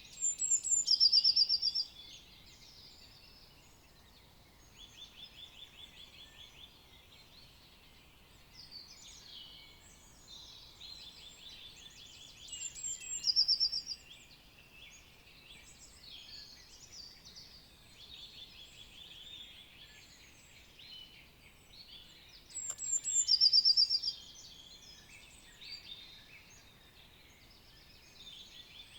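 Spring forest bird chorus: many songbirds singing and calling at once, with one nearby bird repeating a loud short song about every ten seconds, three times in all.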